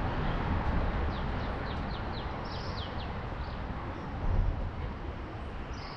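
A bird calling a quick series of about eight descending chirps for roughly two seconds, starting about a second in, over a steady rumbling background noise.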